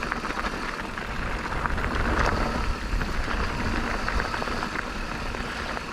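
Electric mountain bike riding down a dirt trail: steady wind rush on the microphone and tyre noise, with the bike rattling and clicking over bumps.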